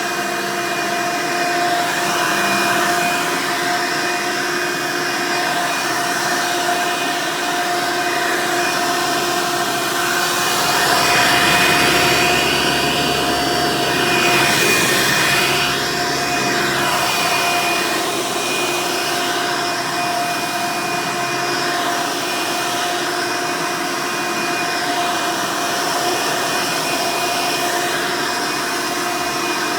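Hoover Elite direct-air upright vacuum cleaner running, a steady motor whine over rushing air. About ten seconds in, the sound swells and its pitch shifts for several seconds before it settles back to the steady whine.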